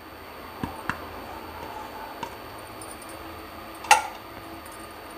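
Kitchenware clicks and taps over a low steady hiss, with one sharp, ringing clink about four seconds in, as spices are tipped from a plate into a steel kadhai of gravy.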